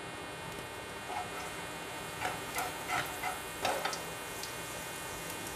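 Whole spices (cumin seeds, cardamom, cinnamon and mace) frying in hot oil in a nonstick pan: a faint steady hiss with a handful of small crackles and ticks, bunched between about one and four seconds in, as the spices splutter.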